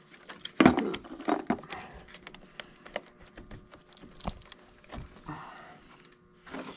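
Scattered metallic clinks and knocks of a socket, extension and ratchet being handled and set down while a car battery terminal is loosened and removed, the loudest knock about half a second in.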